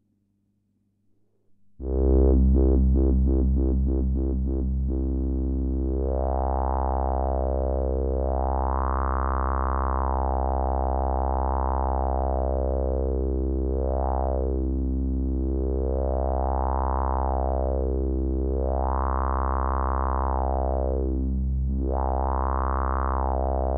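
Bugbrand Bug Crusher synthesizer droning on a steady low note, its filter cutoff swept open and shut by the light-activated Eye control. It comes in about two seconds in with fast rhythmic pulsing, then settles into slow sweeps that brighten and darken about every two to three seconds.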